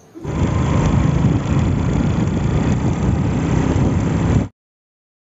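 A vehicle driving along a road, its engine and road noise making a loud, rough rumble. It cuts off suddenly about four and a half seconds in.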